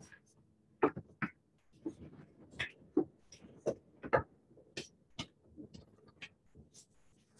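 Irregular short taps and scratchy strokes of writing on a board, a dozen or so marks with pauses between them, the sharpest about a second in and again around four seconds.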